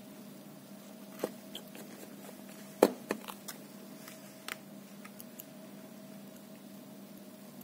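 Light clicks and taps of a small hand tool and fingers on a laptop's metal palmrest frame: a scattered handful, the sharpest about three seconds in, over a steady low hum.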